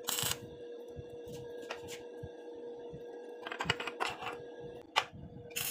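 Stick welder striking a brief tack weld: a short burst of arc crackle at the start. Then small metal clicks and rattles follow as the steel pieces are handled, with a sharp click and another short loud burst near the end.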